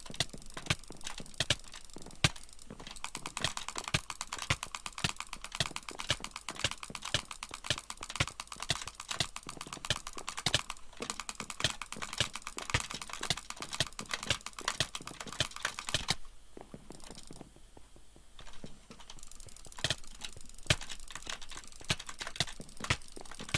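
Typing on a keyboard with a mushy sound: a fast, dense stream of keystrokes with louder single key clicks standing out. The typing drops to a brief lull about two-thirds of the way through, then picks up again.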